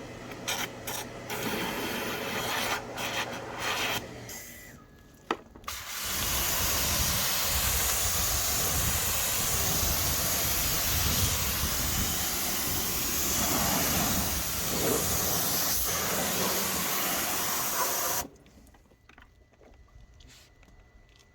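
Rubbing and clicking, then a steady loud hiss of spray during a car wash that lasts about twelve seconds and cuts off suddenly, followed by a few faint clicks.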